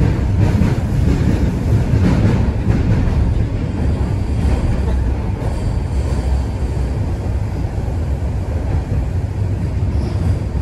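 TTC Toronto Rocket subway train running between stations, heard from inside the car: a loud, steady low rumble of wheels on rail and traction motors, with a few faint clacks in the first few seconds.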